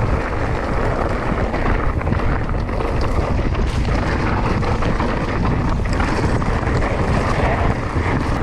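Wind buffeting the microphone of a mountain bike's action camera, mixed with tyres rolling over a dusty, stony trail and many small rattles and knocks from the bike over the bumps.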